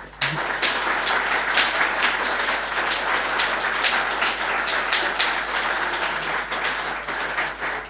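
Audience applauding: many hands clapping at a steady level, dying down near the end.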